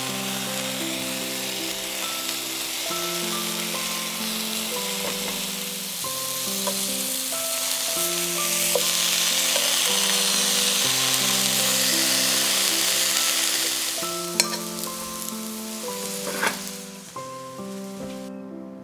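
Daikon slices sizzling in hot oil in a cast-iron skillet, the sizzle swelling louder in the middle and dying away near the end, with a couple of sharp clicks. Background music with sustained notes plays throughout.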